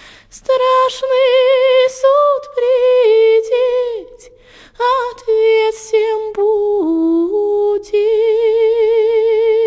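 A woman singing a slow Russian folk-style song alone, with long held notes and wide vibrato and brief breaks between phrases.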